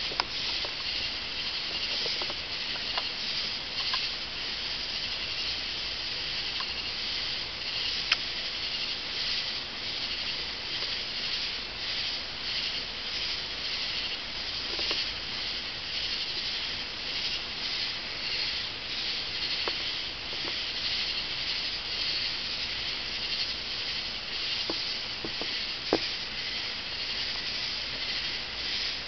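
Steady high-pitched hiss from a chorus of insects, pulsing faintly, with a few sharp clicks, the loudest about eight seconds in and near the end.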